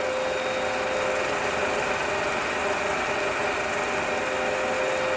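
Vintage film projector running: a steady mechanical whir with a constant hum.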